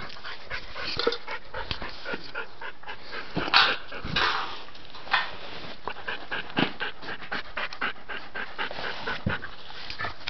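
A dog panting hard while it scratches and scrabbles, pawing at a toy it cannot get loose, with several short, louder scraping bursts about three and a half to four seconds in.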